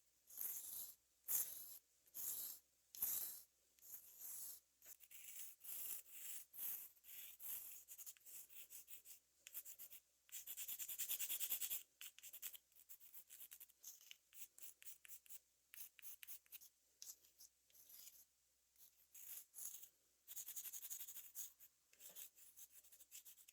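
Chalk drawn across the glass of a fish tank in short, scratchy strokes, with one longer continuous stroke of nearly two seconds about ten seconds in.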